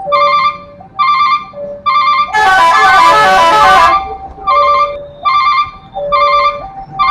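Railway level-crossing warning signal chiming over and over in a steady two-note pattern. About two seconds in, a truck's multi-tone telolet horn blasts a quick run of notes for about a second and a half, the loudest sound here.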